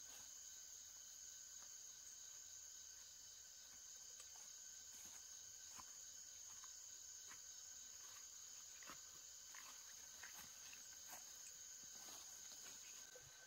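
Faint, steady, high-pitched insect chorus in the vegetation, with scattered light rustles and footfalls of someone walking through tall grass and weeds in the middle and later part.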